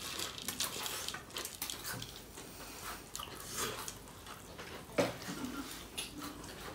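Quiet hand-eating sounds: chewing, and fingers squishing rice and curry against a steel plate and bowl, with small scattered clicks.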